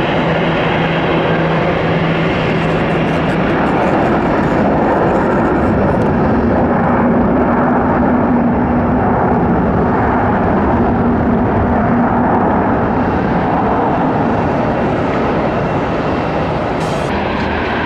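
Jet aircraft engines running, a loud, steady rumbling noise with a faint low hum.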